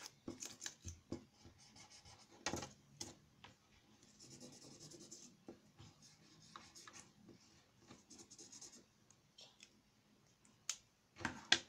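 Felt-tip marker scratching across paper, faint, as a small paper triangle is coloured in. A few sharp taps cut through, one about two and a half seconds in and a quick cluster near the end.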